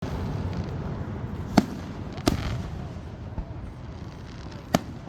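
Fireworks shells bursting: three sharp bangs, about a second and a half in, just after two seconds and near the end, with a fainter low thud between them, over a steady low rumble.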